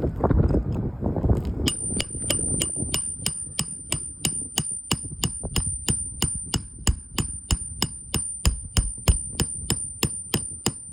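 Rapid, evenly spaced metallic taps, about three or four a second, with a high ringing between them, starting a couple of seconds in: a hammer striking roofing nails into a shingle. Wind noise on the microphone comes before the taps.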